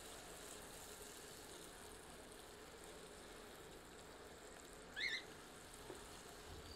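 Onion-and-spice masala sizzling faintly in mustard oil in a cast-iron kadhai as a silicone spatula stirs it; the masala is fried to the point where the oil separates. A brief rising squeak about five seconds in.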